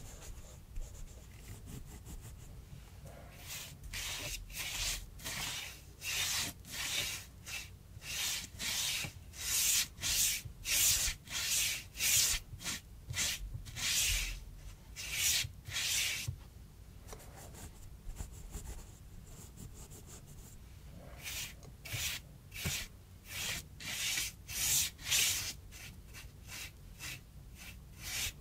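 Bristle paintbrush dragging thick gouache paint across rough cardboard in quick back-and-forth strokes, about two a second, with a pause of several seconds in the middle.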